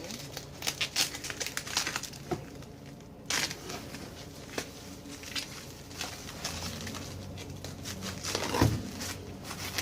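Cardboard box and packing material being handled and torn open: a quick run of crackles and crinkles, scattered ticks, then one heavy thump near the end.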